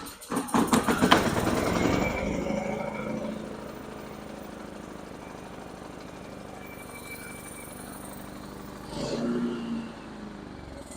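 Champion dual fuel generator's small engine catching on starter fluid sprayed into its carburetor, loud at first and then settling into steady running. Starting on starter fluid when it would not start on gasoline points to a fuel-delivery problem in the carburetor.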